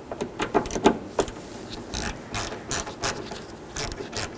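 Hand ratchet clicking in short strokes as it drives the T30 Torx screw that holds a door lock cylinder.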